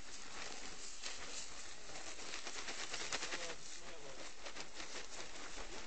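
Faint, indistinct voices of people talking at a distance, over a steady hiss.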